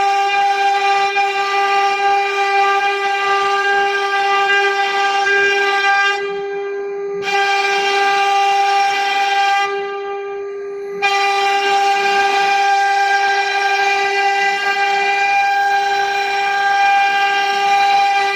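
CNC router spindle running at a steady high whine with a long row of overtones. Twice it turns quieter for about a second as the upper part of the whine drops away, and then comes back.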